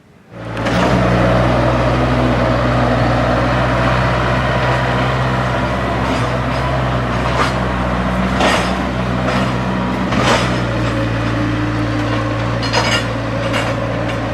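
A large engine running steadily at an even speed, with occasional sharp knocks and crashes over it, typical of heavy equipment working at concrete demolition.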